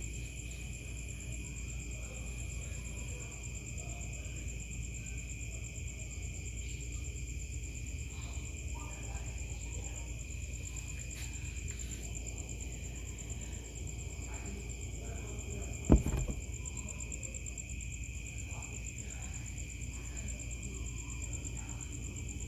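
Steady chorus of night insects such as crickets, held high tones running without a break over a low rumble. There is one sharp knock about 16 seconds in.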